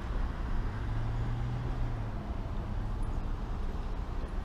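Steady low rumble of nearby road traffic, with a vehicle engine's low hum growing louder about a second in and easing off a second later.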